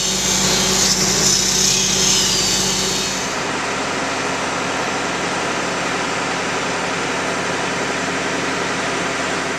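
Electric angle grinder cutting steel, a loud high-pitched whine and grinding hiss for about the first three seconds, then a steady, duller machine running noise for the rest.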